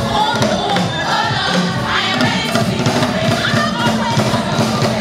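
Gospel choir of women's voices singing together, backed by a live band with a drum kit keeping a steady beat.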